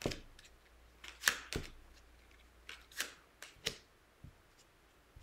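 Fortune-telling cards being drawn from the deck and laid down on the table: about ten short snaps and taps at irregular spacing, the loudest a little over a second in.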